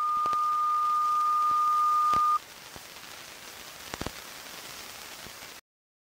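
Emergency-broadcast alert tone, one steady pitch, closing the civil-defense radio message. It stops abruptly about two seconds in, leaving faint radio static with a few crackles, and the static cuts to silence near the end.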